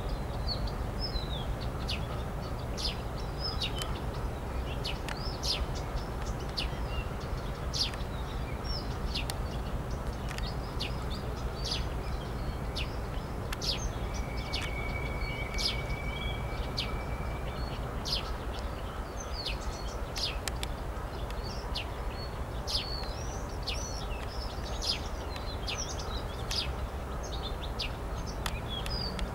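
Small birds chirping and calling over and over, with a steady low background rumble beneath. About halfway through comes a thin, high, held whistle lasting about two seconds.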